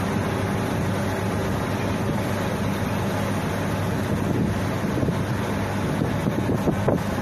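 Pushback of an Airbus A330 by an aircraft tow tractor: a steady engine hum over a constant noisy rush, with a short louder knock near the end.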